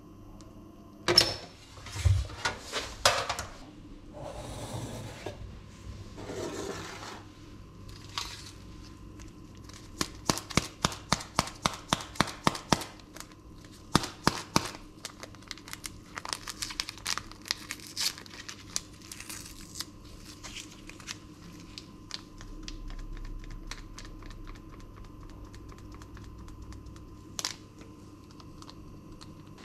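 A small paper baking sachet being crinkled and torn open, with a run of quick taps about four a second midway through and scattered crackles after. A few loud knocks come near the start.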